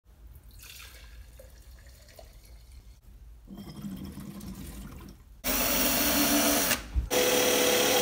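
Liquid, petrol from a plastic bottle, pouring into a glass jar. Then a cordless drill runs much louder, in two runs of about a second each with a short break near the end.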